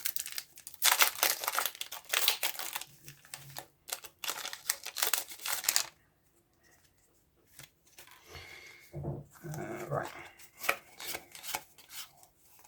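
Packaging of a Pokémon trading card blister pack crinkling and tearing as it is opened by hand, in rapid crackly bursts for about six seconds, then a pause and more scattered crinkling near the end.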